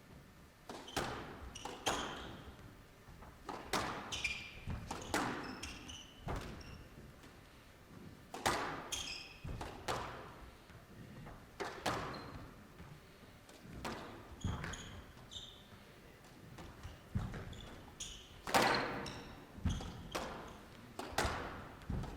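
A squash rally: the rubber ball cracks off rackets and the court walls about every second or two, each shot echoing in the hall. Short high squeaks of players' shoes on the court floor come between shots.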